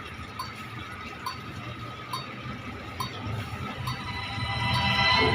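Intro of a dance remix track: a cowbell-like tick a little more than once a second over a steady high tone, with the sound building up near the end.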